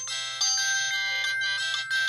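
LG W3000 mobile phone ringtone playing: an electronic tune of quick notes, several sounding at once, in a short phrase that repeats.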